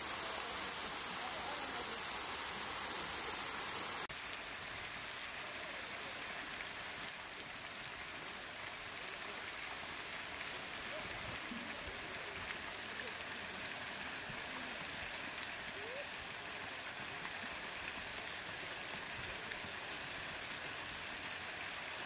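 Steady hissing outdoor ambience, with a few faint, short bird calls. The hiss drops abruptly in level and brightness about four seconds in.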